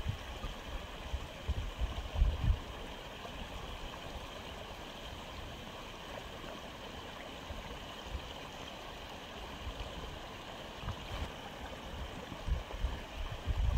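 Aquarium filter running: a steady trickle and gurgle of water. A few low thumps come in the first couple of seconds and again near the end.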